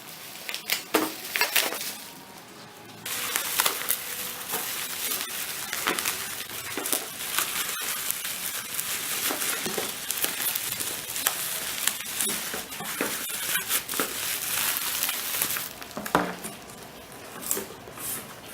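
Packaging being handled while unboxing a phone: a few clicks and taps, then about twelve seconds of continuous crackling, crinkling rustle as of plastic wrapping, then more scattered taps near the end.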